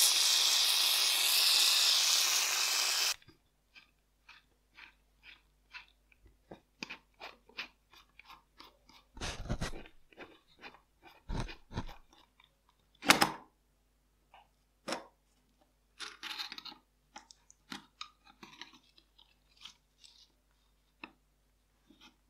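An aerosol can hisses steadily, spraying through its straw nozzle into a rusty revolver's action, and stops abruptly about three seconds in. After that come scattered small clicks, taps and gritty scrapes of a screwdriver and steel parts as the revolver is taken apart, with one sharp click a little past the middle standing out.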